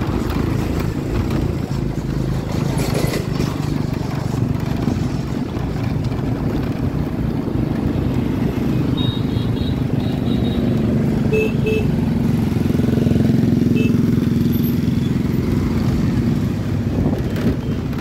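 Motor scooter traffic: small motorbike engines running steadily at low speed, with road and wind noise. A few short high beeps sound about halfway through.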